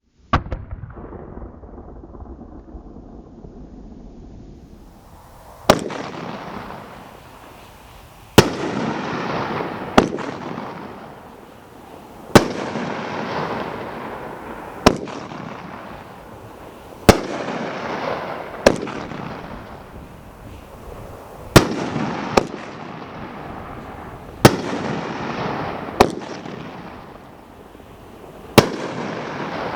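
Fireworks going off in a sequence: a sharp bang every two to three seconds, each followed by a few seconds of crackling that fades away.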